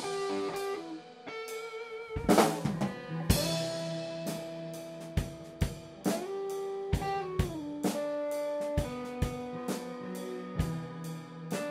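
Improvised instrumental jam: a drum kit playing snare and bass drum hits under sustained electric guitar and keyboard notes that change pitch now and then. A loud hit comes a little over two seconds in.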